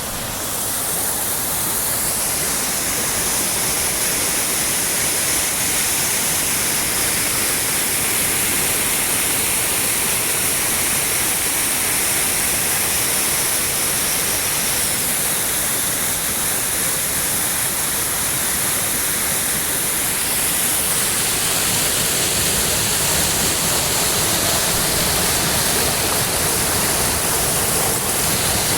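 Water pouring over a dam, swollen by heavy rain: a loud, steady rush of falling water.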